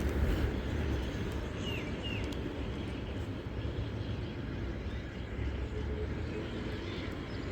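Steady low outdoor rumble with two short high chirps about two seconds in.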